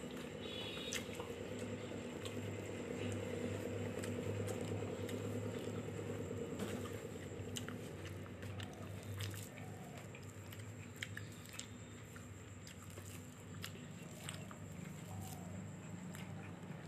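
A person chewing food close to the microphone with her mouth closed: soft, wet mouth clicks and smacks scattered through, over a low steady hum.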